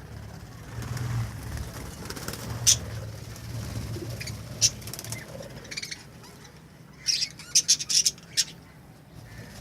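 Budgerigars chirping in their colony: a couple of single sharp calls, then a quick run of chirps near the end, over a low rumble.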